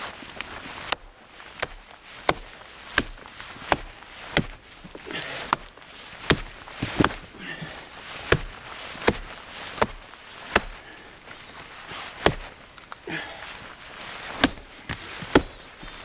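A hatchet chopping chaga fungus off a birch trunk: a steady run of sharp blows, roughly one and a half a second, with a short pause about eleven seconds in.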